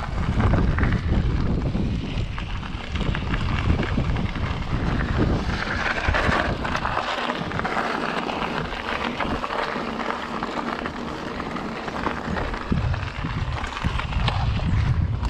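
Mountain bike riding down a dirt trail: wind buffeting the camera microphone over the rattle and crunch of tyres and frame on rough ground. A louder gritty hiss comes in about six seconds in.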